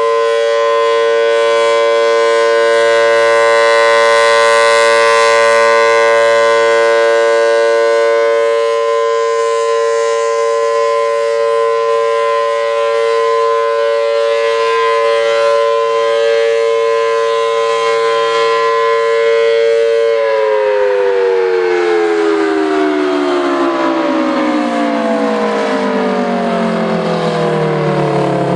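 Federal Signal Thunderbolt 1000T outdoor warning siren with a 4/5-port rotor, sounding a steady multi-tone chord at full speed. After about twenty seconds it winds down, its pitch falling steadily.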